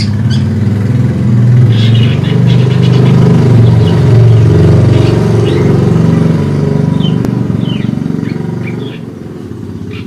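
A motor vehicle's engine running, loud and low, easing off about a second before the end, with short, high bird chirps over it now and then.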